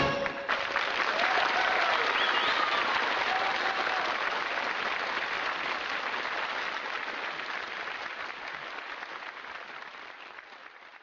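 Crowd applauding and cheering, with a few shouts a second or two in. The applause fades out steadily and stops near the end.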